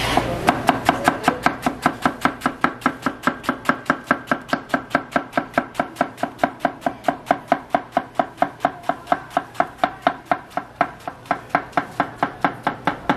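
Large kitchen knife shredding a half head of cabbage on a wooden cutting board: a steady run of quick chops, about five or six a second, each a sharp knock of the blade on the board.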